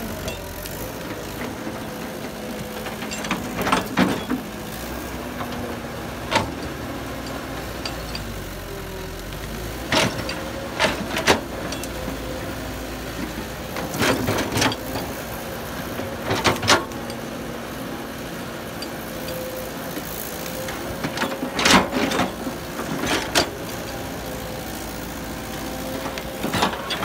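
Caterpillar E120B hydraulic excavator's diesel engine running steadily while it clears brush, with sharp cracks and knocks every few seconds.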